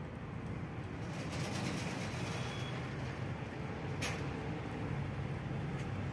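A steady low hum in the background, with one sharp plastic click about four seconds in as a white plastic carburettor float is pressed onto the carburettor body.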